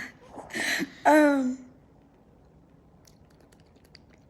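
A person's voice making a made-up vocal sound: a breathy hiss, then a loud half-second voiced cry that falls slightly in pitch, about a second in.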